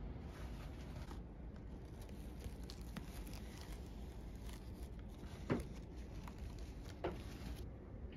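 Artificial sunflowers being handled: soft rustles and light clicks over a low steady rumble, with two sharper knocks about five and a half and seven seconds in.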